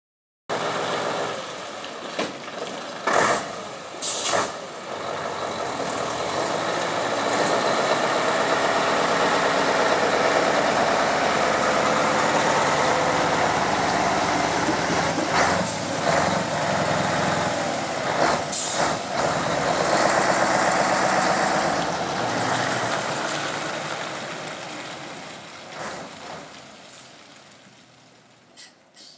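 Scania 143's V8 diesel engine running as the truck moves off and passes close by, its level building through the middle and then fading away as the truck drives off. A few short sharp air-brake hisses, two early on and two more about halfway through.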